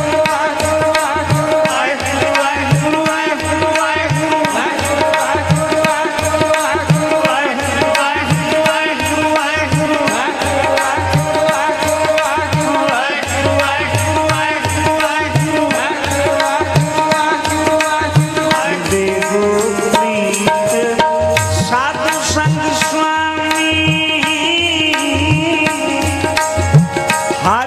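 Sikh kirtan accompaniment: tabla playing a steady rhythm under a sustained harmonium melody.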